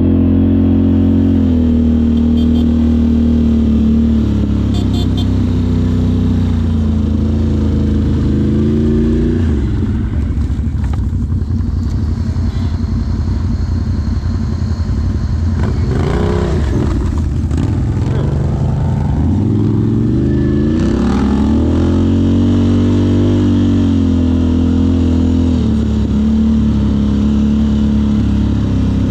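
Off-road vehicle engine running under way, its pitch rising and falling with the throttle several times, with a rougher, noisier stretch about halfway through.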